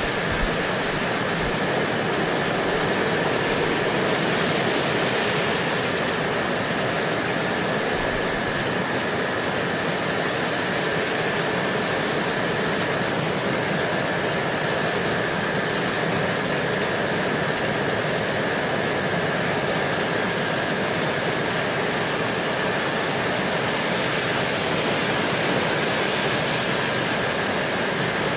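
Steady rainfall: an even, unbroken hiss of rain, with a faint steady high-pitched tone running through it.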